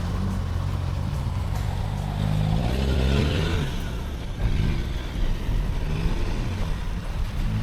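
A 4WD vehicle's engine running at low revs, with a brief swell of rushing noise about three seconds in.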